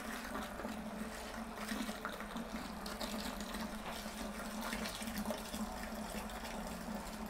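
Chilled stout wort pouring in a thin stream from a hose into a stainless steel fermenter, splashing and foaming to aerate it, over the steady hum of the Blichmann Riptide transfer pump.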